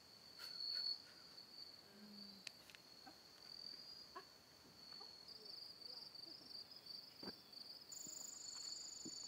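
Faint insect chorus: a steady high-pitched trill, joined about eight seconds in by a second, higher pulsing trill.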